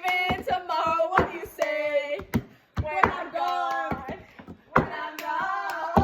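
Girls singing a song together, with held notes sliding in pitch, over sharp hand claps and slaps used as percussion.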